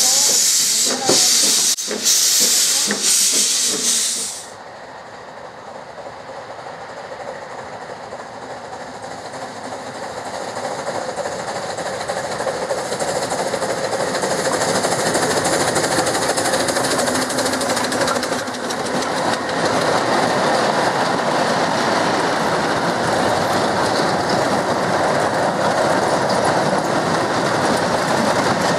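Double Fairlie steam locomotive hissing loudly, steam blowing from around its cylinders, for about four seconds. After a cut comes a steam-hauled slate train: its running sound grows louder over about ten seconds, then holds as a steady rumble and clatter while the slate wagons roll past.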